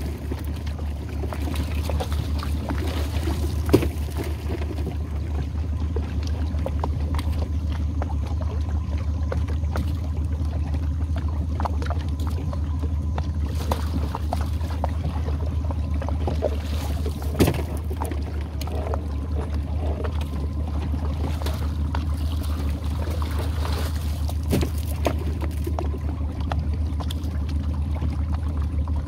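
Boat engine running at a low, steady idle hum while a crab trotline runs up over a side-mounted roller, water trickling and splashing off the line. A sharp knock comes a few seconds in and another past halfway.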